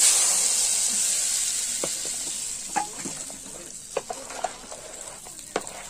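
Hot mustard oil with fried dried red chillies poured onto spiced raw mango pieces, sizzling loudly at once and fading over several seconds, with a few sharp clicks from the mixing.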